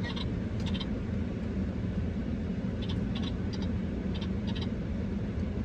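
Steady low rumble of a car cabin with the engine running, overlaid several times by short clusters of quick high-pitched chirps.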